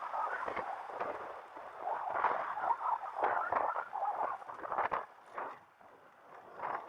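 Irregular crackling wind and riding noise on an action camera's microphone, with scattered clicks and rattles. It drops away for about a second and a half near the end, then returns.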